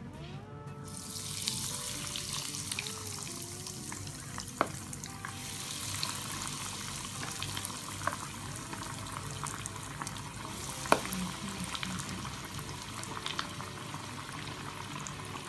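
Breaded chicken drumsticks frying in hot oil in a cast-iron kadai: a steady, crackling sizzle that swells about a second in as the pieces go into the oil. There are two sharp knocks, about five and eleven seconds in.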